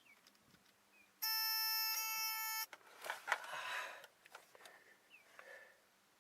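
A steady electronic beep, one unbroken tone lasting about a second and a half that cuts off sharply, followed by a second or so of rustling and clicking handling noise.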